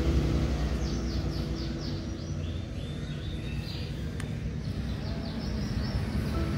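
A small bird chirping in a few quick runs of short falling notes, over a steady low outdoor rumble.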